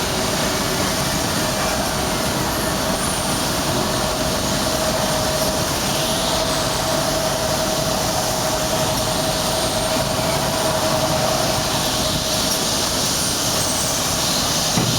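Soteco GREEN 633 professional wet-and-dry vacuum cleaner running steadily: a constant motor whine over loud rushing air.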